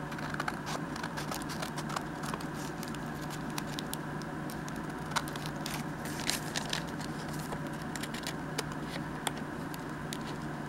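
Scissors snipping through a paper envelope in short, irregular cuts, with paper rustling, over a steady low hum.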